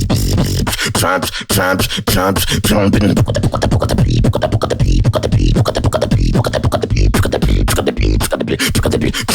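Solo vocal beatboxing: a fast run of sharp percussive clicks and snares over a deep continuous bass, with warbling pitched vocal sounds about a second in.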